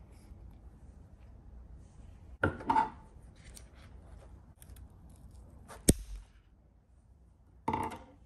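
Scissors cutting through an orchid's flower stem, with one sharp snip about six seconds in. Shorter bursts of handling noise come about two and a half seconds in and again near the end.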